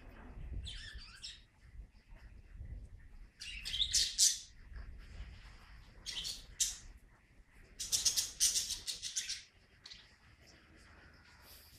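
High-pitched animal calls in four short bouts a few seconds apart.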